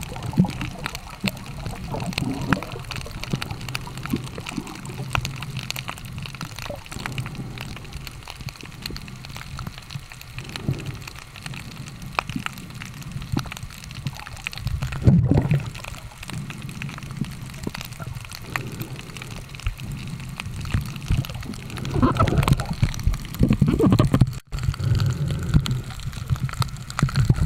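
Seawater heard through a camera held underwater while snorkeling: a muffled low rumble with many small clicks and crackles, swelling into louder gurgling about fifteen seconds in and again a few seconds before the end.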